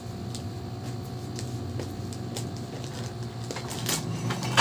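Gift wrapping paper crinkling and rustling in short scattered crackles as a wrapped box is handled and picked open, growing louder near the end as the paper starts to tear. A steady low hum runs underneath.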